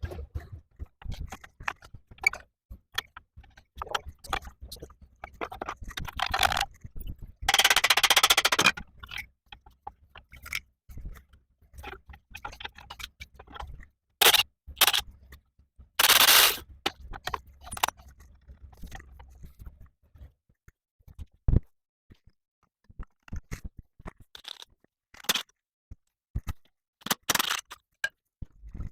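Hand tools working on car suspension: sockets, spanners and bolts clinking, knocking and scraping on metal, with two longer bursts of rattling noise, one about a quarter of the way in and one about halfway.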